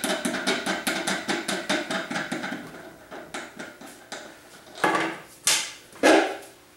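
Hand handling the lid and centre wing nut of a vibratory case tumbler, with the tumbler switched off: a few seconds of quick light clicks, then three louder knocks about half a second apart near the end.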